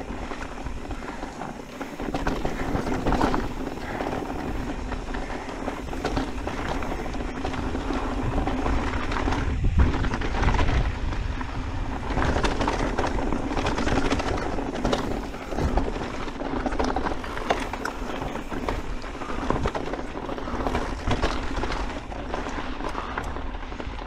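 Orbea Wild FS full-suspension mountain bike rolling over rocky gravel singletrack: tyres crunching over stones and the bike clattering over bumps, over a steady low rumble.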